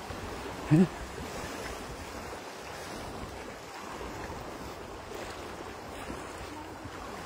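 Steady rush of wind and shallow seawater washing over the flats, with wind buffeting the microphone. About a second in, a short loud shout cuts through.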